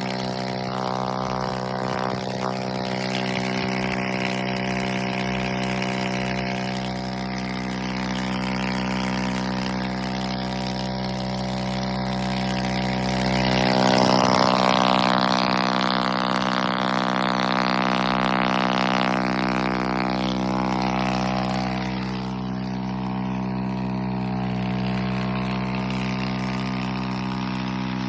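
Kymco Agility 50 scooter engine running with no exhaust fitted, idling with a steady buzz. About halfway through it is revved and gets louder for several seconds, then drops back to idle.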